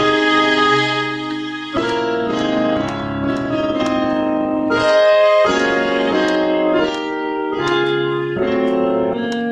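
Sampled grand piano (iLectric Piano's E-Grand 2) layered with Miroslav strings from SampleTank on an iPad, played as sustained chords from a MIDI keyboard controller. The chords change every second or two, each with a fresh piano attack under the held tones.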